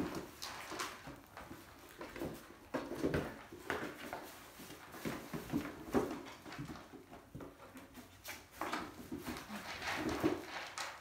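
Kittens playing in and around a cardboard cat-food box: irregular rustles, scrapes and light knocks of cardboard, with paws scuffling on a wooden floor.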